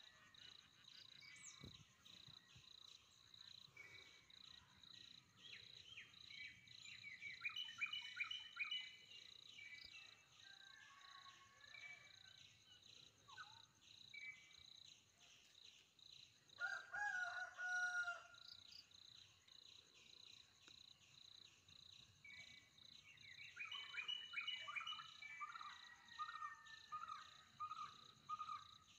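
Faint forest ambience: a steady, rapidly pulsing insect chirp with birds calling and singing over it in several bursts. Near the end a bird repeats a short note many times.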